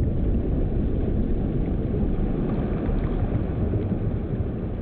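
Low, steady rumbling noise that slowly fades.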